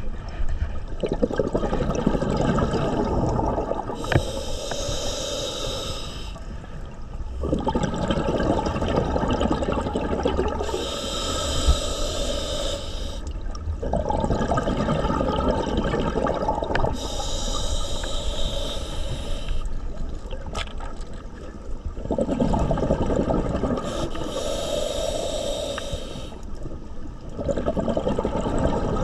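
Scuba diver breathing through a regulator underwater: a hissing inhale, then a rumbling rush of exhaled bubbles, about four breaths at roughly one every six to seven seconds.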